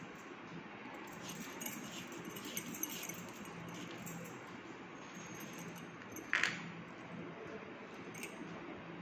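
Faint light clinking and rattling of small hard objects over a low steady hum, with one short, sharp squeak-like sound about six seconds in.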